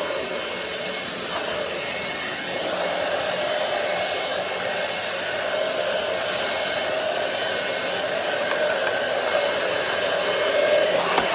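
A lightweight cordless stick vacuum cleaner running steadily, its motor whirring over a rushing airflow hiss, slightly louder from about two and a half seconds in as it is pushed over the floor.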